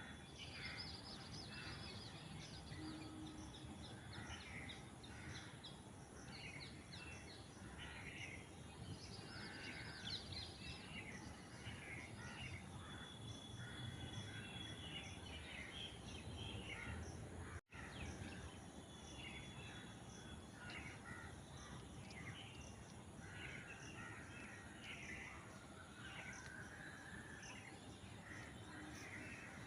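Birds calling outdoors: many short, repeated calls, some crow-like caws, over a low background rumble. The sound cuts out for an instant about two-thirds of the way through.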